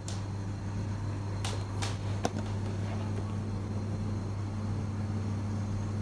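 Room tone with a steady low hum, like a fan or appliance running, and a few light clicks between about one and a half and two and a half seconds in.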